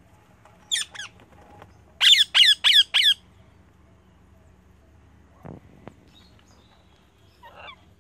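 A parrot squawking: two short calls, then a quick run of four loud, shrill calls, each falling in pitch. Later a soft knock and a faint call.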